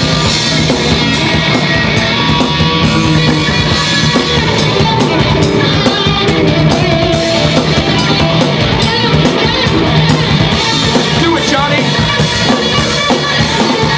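Live rock band playing an instrumental passage, drum kit and electric guitar prominent, loud and dense.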